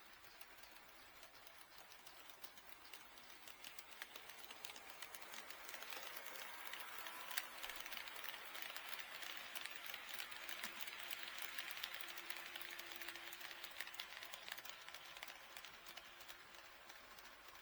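HO scale model train running past, its wheels rattling and clicking over the rail joints. It grows louder as it approaches, is loudest around the middle, and fades as it runs away.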